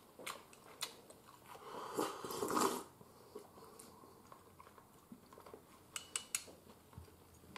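A person eating cream stew from a ceramic cup: chopsticks click against the cup, and a louder slurp from the cup comes about two seconds in, with faint chewing between.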